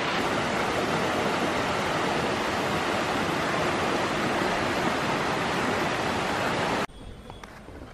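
Rushing water of a rocky mountain stream spilling over small cascades and rock ledges, a steady even rush. It cuts off suddenly about seven seconds in, leaving a much quieter outdoor background.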